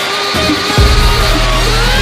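Background music: a loud song with a heavy bass line and sustained, gliding synth-like tones.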